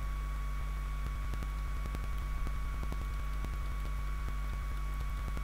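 Steady electrical hum with a faint high whine and hiss from the recording chain, with faint irregular ticks.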